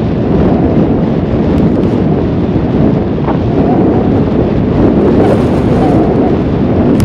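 Loud, steady wind noise from air rushing over the microphone of a phone riding on a slope-soaring combat glider in flight, with no motor in it.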